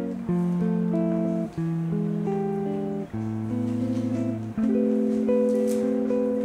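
Background music: slow, held chords that change about every second and a half.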